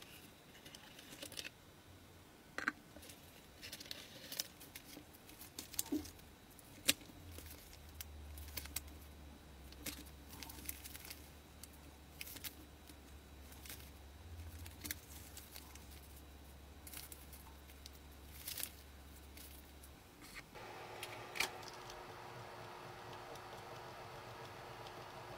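Small plastic kit parts and plastic bags being handled, a scatter of light clicks, taps and crinkles. About twenty seconds in, a steady hum with several tones sets in.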